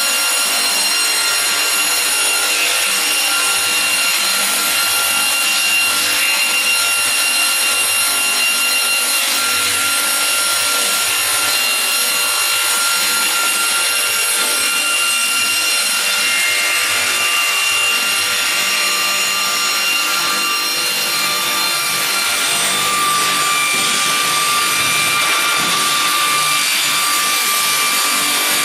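GP-500VRP slab-processing sawing machine running and sawing wood: a steady, loud saw noise with several high ringing tones held throughout, dipping slightly a little after two-thirds of the way in.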